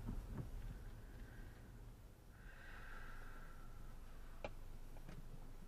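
Faint low rumble of a Hyundai i20's engine and tyres heard from inside the cabin, with a few scattered clicks and a faint whine about halfway through.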